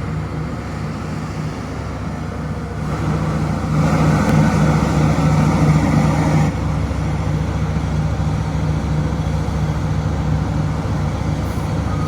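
Heavy diesel mining machine engine running steadily, growing louder about four seconds in and dropping back abruptly a couple of seconds later.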